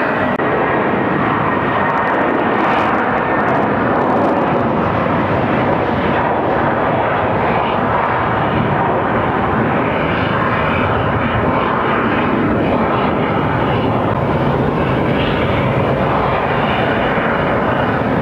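Jet airliner engines running on the runway, a loud steady rushing noise that holds at the same level throughout.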